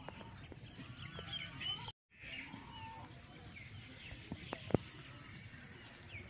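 Faint outdoor ambience of birds calling here and there, short chirps and calls over a low background. The sound cuts out completely for a moment about two seconds in, and a couple of soft clicks come near the middle.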